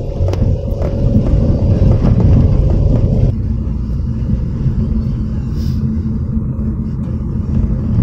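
A vehicle on the move: loud, steady low engine and road rumble. A higher steady hum drops out about three seconds in, and a few light knocks come in the first two seconds.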